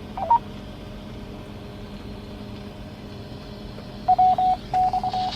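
Beeps from an amateur radio transceiver over a steady low hum: a short two-note beep just after the start, then about four seconds in a run of beeps at one pitch, some short and some long, the kind of tones a radio net's repeater sends between transmissions.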